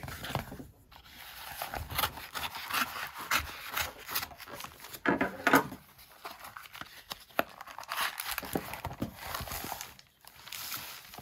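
Paper and card rustling and crinkling as a cardstock mailer is slit with a knife, turned over and its papers pulled out, in uneven bursts with the loudest handling about five seconds in.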